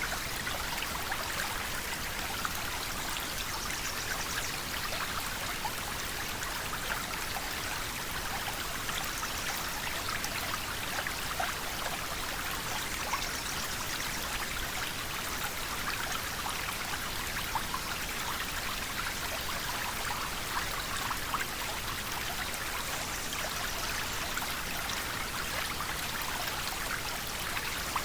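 River water flowing steadily over rocks, a continuous rushing and babbling with small splashes scattered throughout.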